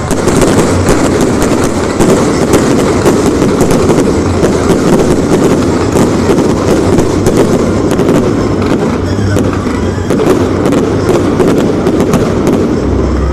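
Aerial fireworks barrage: many shells bursting in quick succession, a dense, continuous crackling and banging without a break.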